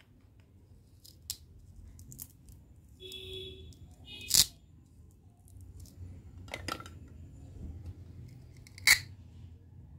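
Hollow plastic toy fruit pieces handled and clacking together, with a few sharp plastic clicks as the banana halves are pressed together and set down on a plastic tray; the loudest clicks come about four and a half seconds in and near the end.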